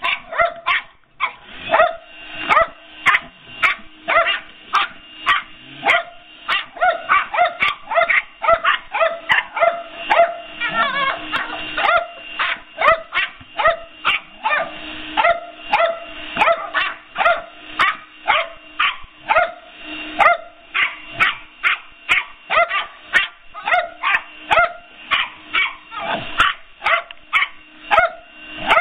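Dogs barking nonstop at a running handheld Dirt Devil vacuum, about two barks a second, over the vacuum's steady hum.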